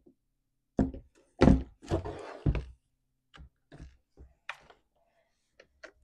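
A chainsaw's plastic housing knocking and thunking on a workbench several times as it is handled and turned around, followed by lighter plastic clicks as its fuel cap is worked open.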